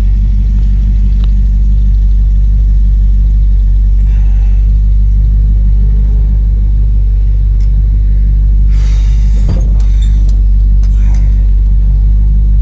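1963 Chevrolet Impala's engine running steadily with a low, even rumble. There is a brief rush of noise about nine seconds in.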